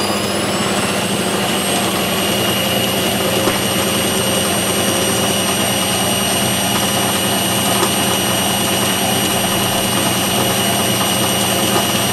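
Metalmaster MML 1830V bench lathe with a new motor and a smaller motor pulley, running unloaded at its top speed. A steady whine comes from the motor and belt drive. Its pitch rises briefly at the start as the spindle finishes spinning up to about 1,070 rpm, then holds level.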